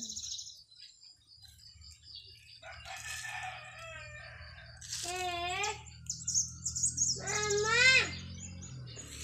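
A rooster crowing twice, about five and seven seconds in, each crow a drawn-out call that rises and falls, over the high chirping of small birds.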